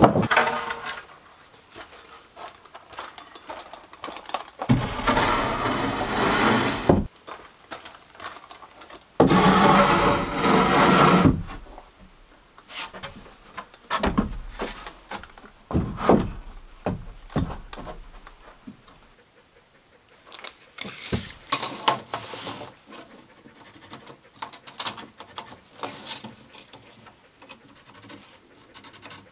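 Hand-tool woodworking on a wooden porch: two loud stretches of dense noise about two seconds each in the first half, then scattered short knocks and taps of wood and tools.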